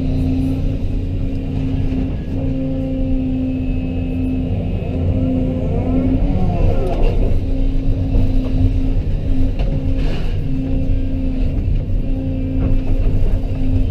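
Tracked excavator's diesel engine running steadily under load, a constant low drone with a steady hum, and a brief wavering squeal about six to seven seconds in.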